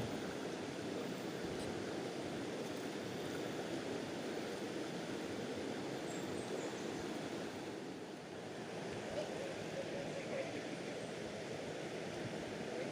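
Swift river current rushing steadily.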